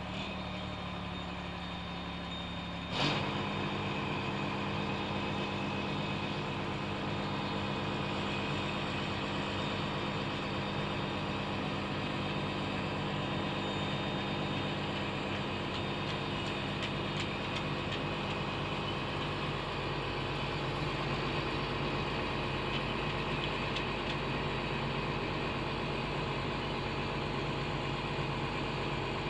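Motorhome engine idling steadily. A short knock comes about three seconds in, after which the idle runs a little louder.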